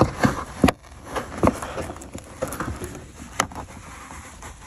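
Hands working the carpeted boot trim lining of a VW Golf 4 loose from its clips: irregular sharp knocks and clicks, several in the first second and a half and one more past three seconds, with rubbing of the carpet.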